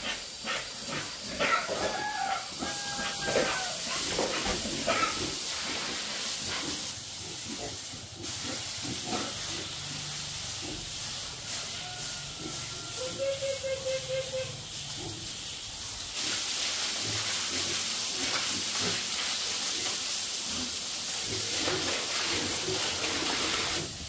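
Water spraying from a hose onto a concrete pig pen, a steady hiss that grows louder in the second half. Pigs squeal and grunt now and then, mostly in the first few seconds.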